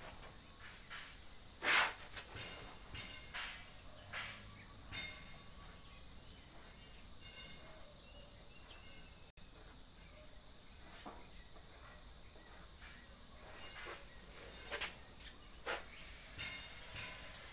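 Short, irregular scrapes and taps of a plastic body-filler spreader working red putty onto a car's painted panel, the loudest about two seconds in and several more near the end. A steady high-pitched whine sits underneath.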